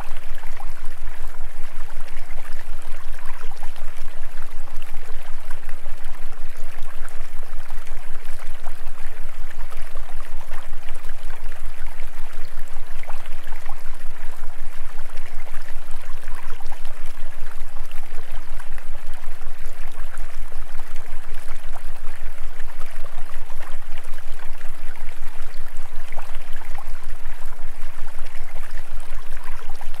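Steady rushing, stream-like water noise over a low hum that pulses rapidly and evenly.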